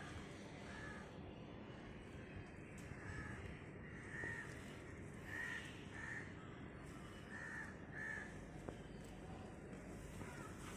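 A crow cawing faintly in the distance: a string of short caws, about seven, some in quick pairs.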